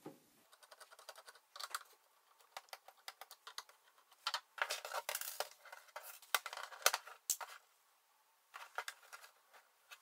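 Plastic laptop case being handled on a wooden table: scattered small clicks, taps and scrapes, with a short lull near the end.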